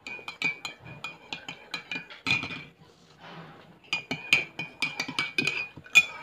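Metal spoon stirring coffee in a ceramic mug, clinking against the inside of the mug about five times a second with a high ringing tone. The clinking pauses for about a second midway, then starts again.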